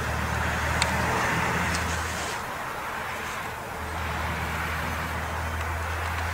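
Steady low rumble with a hiss over it, of the kind distant road traffic makes. The rumble drops away for about a second in the middle, and there is a faint click about a second in.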